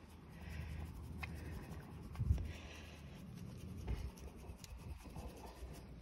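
Hand rubbing and scratching a calf's thick, curly coat close to the microphone: a soft, scratchy rustle over a low rumble, with a short thump about two seconds in.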